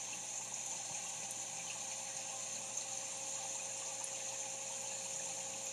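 Aquarium pump running steadily: a constant hum with an even hiss of moving water.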